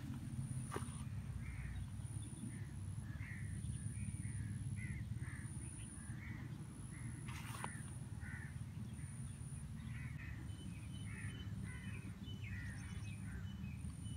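Crows cawing over and over, many short calls, over a steady low rumble and a faint high-pitched whine that comes and goes.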